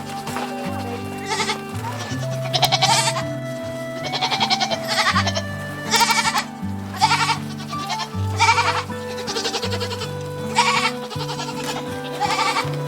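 Nigerian Dwarf goats bleating repeatedly, about ten short bleats spaced a second or so apart, over background music with a steady bass line.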